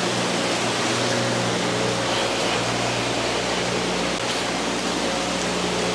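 Aquarium aeration and pumps: a steady rushing hiss of air-stone bubbles and moving water with a constant low hum underneath.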